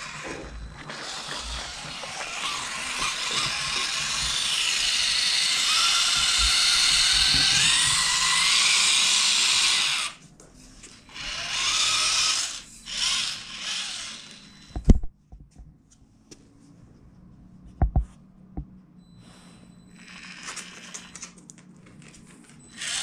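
Electric motor and gears of a Redcat Ascent-18 RC crawler whining under throttle, rising in pitch and loudness for about ten seconds, then a few shorter bursts as it drives in spurts. Later come a couple of sharp knocks over quiet room tone.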